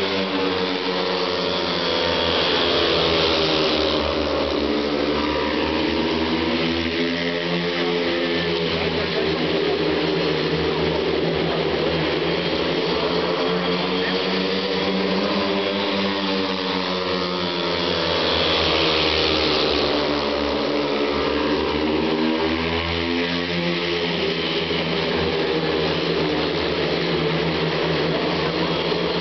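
Four speedway motorcycles' 500cc single-cylinder methanol engines racing together, their pitch repeatedly rising and falling as the riders throttle on and off around the laps. Loudest twice, about 3 seconds in and again near 19 seconds, as the pack passes close by.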